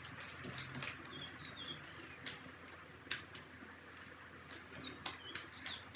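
Faint sticky squelching and small wet clicks of homemade glue-and-borax slime being squeezed, stretched and poked by hand on a countertop, with a handful of sharp clicks scattered through.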